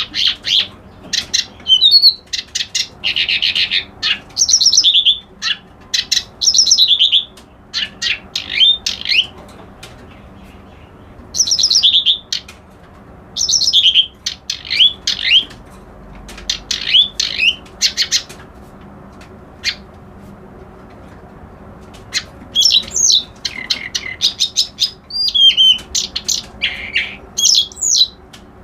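Kerak basi alis putih, a reed warbler, singing loud phrases of fast, harsh chattering notes mixed with sweeping whistled notes. Phrases last a second or two and are broken by short pauses, the longest about ten seconds in and again around twenty seconds in.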